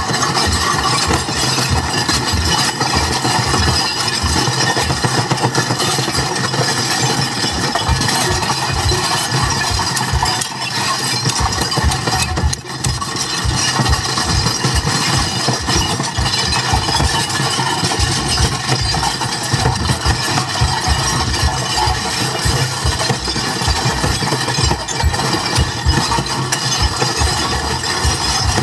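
Experimental noise performance: a loud, continuous droning and rattling wall of sound with a rapid throbbing underneath. It dips briefly about twelve seconds in.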